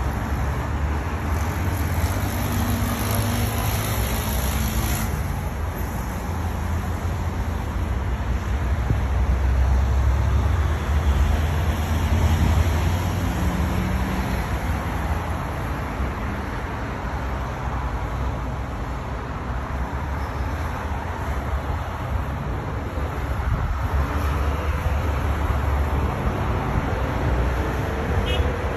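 Steady road traffic from cars on a multi-lane road below, mixed with sandstorm wind buffeting the microphone in a heavy low rumble. The sound swells for a few seconds near the middle.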